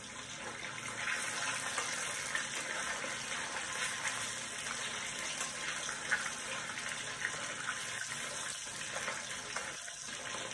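Fish pieces shallow-frying in hot mustard oil in a steel kadai: a steady sizzle sprinkled with small crackles.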